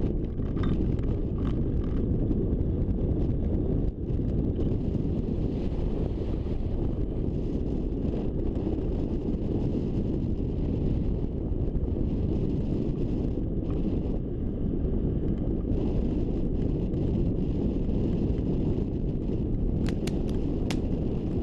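Wind buffeting the microphone of a camera mounted on a hang glider during launch and flight: a steady low rumble, with a few sharp clicks near the end.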